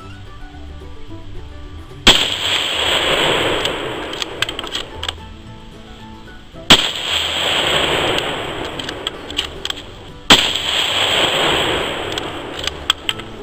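Three shots from a scoped bolt-action rifle, a few seconds apart. Each sharp crack is followed by a long echo that fades over two to three seconds, with smaller clicks in between.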